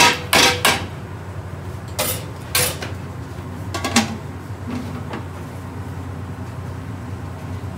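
A long metal spoon knocks against the sides of a large metal stockpot as chicken is stirred: five sharp, ringing clanks in the first three seconds. The metal lid clanks down onto the pot about four seconds in. A steady low hum runs underneath.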